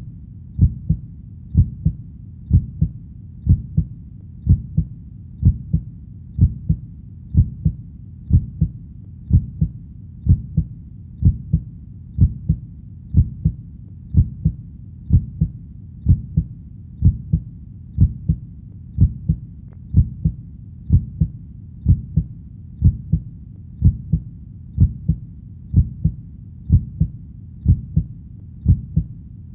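A heartbeat: a steady lub-dub double beat, repeating a little faster than once a second, deep in pitch over a faint low rumble.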